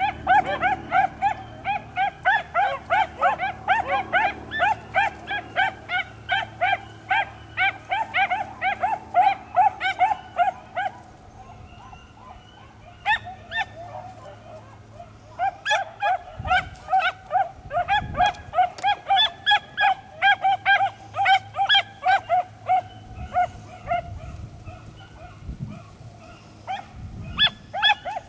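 Beagle hound barking rapidly and steadily, about three to four barks a second, with a short break near the middle before it resumes.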